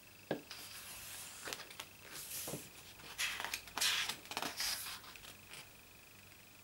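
A page of a large photobook being turned by hand. There is a light knock, then several seconds of paper rustling and sliding as the page is flipped and pressed flat, loudest near the middle.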